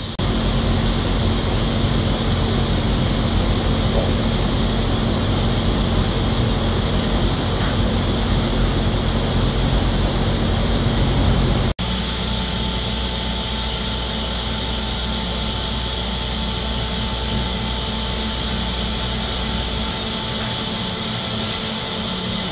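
Steady rushing and humming of a distillery's running column still and its equipment. An abrupt cut about twelve seconds in switches to a slightly quieter steady hum with a faint high tone.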